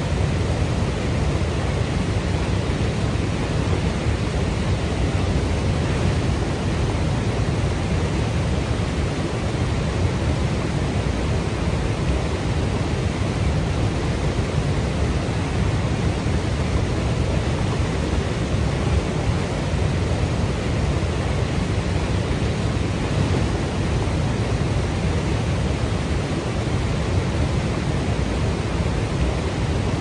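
Niagara Falls' falling water roaring steadily, a constant deep rush of noise heaviest in the low end, without any breaks or changes.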